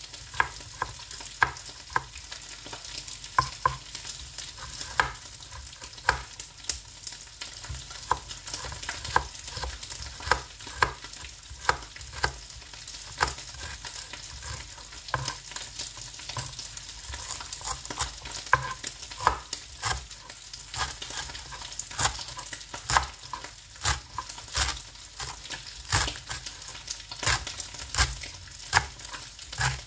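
Kitchen knife slicing kencur leaves on a plastic cutting board: sharp, irregular chops about one or two a second. Under them runs a steady sizzle of teri Medan anchovies frying in oil.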